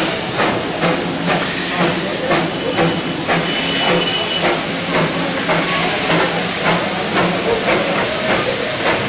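Darjeeling Himalayan Railway B-class saddle-tank steam locomotive hissing steadily with escaping steam, with a regular beat of about three puffs a second. A faint high tone sounds briefly a few seconds in.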